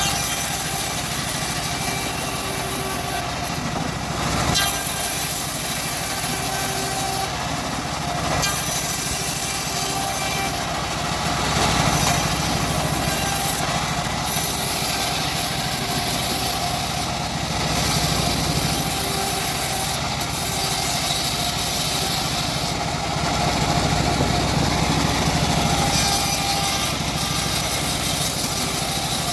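Engine-driven homemade bandsaw mill running steadily while its blade saws through a teak log, the engine note swelling a little now and then under the load of the cut.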